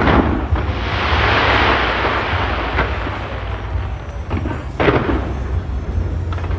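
Fireworks shells bursting: a loud boom at the start, followed by a dense crackling shower for about two seconds, then another boom about five seconds in.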